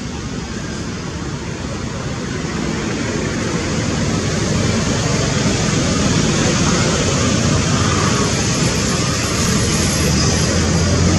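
A motor vehicle passing on the road, its engine and tyre noise growing steadily louder as it approaches, with a low engine hum coming through near the end.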